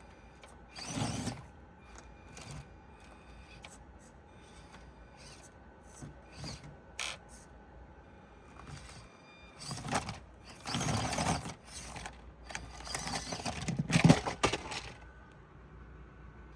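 Axial SCX24 Deadbolt micro RC crawler on its stock brushed motor, working over obstacles: short bursts of motor and gear noise with scraping and clicking. The first burst comes about a second in, and a longer run of bursts from about ten seconds on is the loudest.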